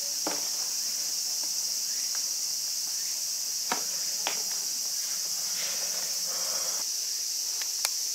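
A steady, high-pitched chorus of insects. A few sharp clicks or taps stand out about four seconds in and near the end.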